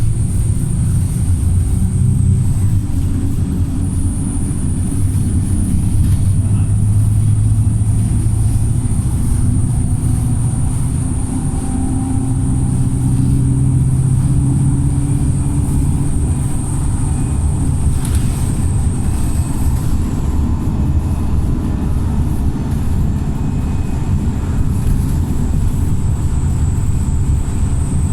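Remapped Wright StreetLite single-deck bus heard on board, its diesel engine working hard as the bus drives, the engine note rising and falling. A steady high whine runs above it.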